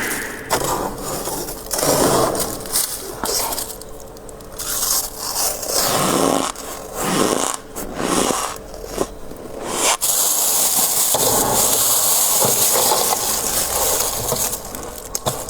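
Soft, snowy freezer frost being scraped and crunched in irregular strokes, then a steady scraping hiss lasting about five seconds near the end.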